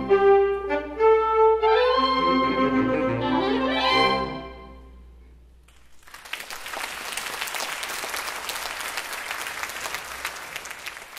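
Saxophone ensemble playing the closing bars of a piece: sustained chords with a rising run about four seconds in, then the final chord dies away. From about six seconds in, the audience applauds.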